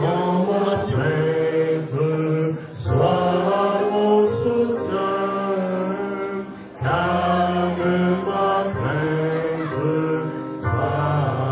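Slow sung music: voices holding long notes in phrases a second or two long, over steady low notes.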